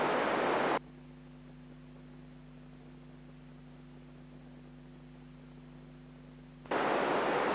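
FM radio receiver hiss on the amateur satellite downlink, which cuts off abruptly about a second in and leaves a low, steady electrical hum. The hiss returns just as abruptly near the end.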